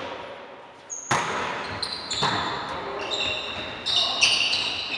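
Men's volleyball rally: the ball is struck sharply about a second in and again about a second later, with more hits near the end, each echoing in the sports hall. From about three seconds in, sneakers squeak on the hardwood court as players move.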